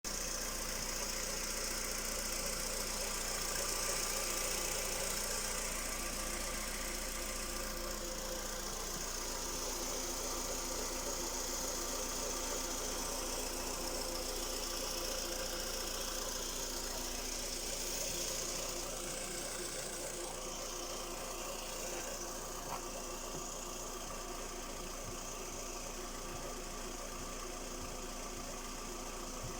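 Škoda Rapid's 1.6-litre CFNA four-cylinder petrol engine running at a steady speed with a knock from inside the engine, whose cause the owner does not know.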